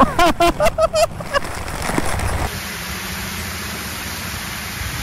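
Steady, even hiss of falling water that takes over about halfway through, after a short burst of voice at the start.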